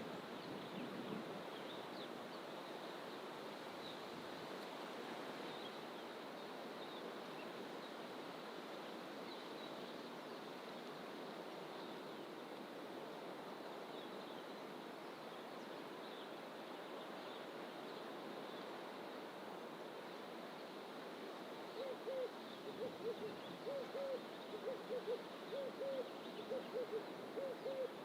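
Steady rushing background of distant ocean surf and forest ambience, with faint high bird chirps now and then. Near the end a bird starts a rapid series of low hooting notes, about three a second, which becomes the loudest sound.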